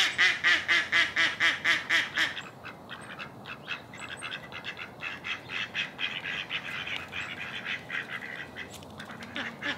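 Mallard-type hen ducks quacking: a loud run of quacks about four a second, each softer than the last, dying away about two seconds in, then a fainter run of quick quacks through most of the rest.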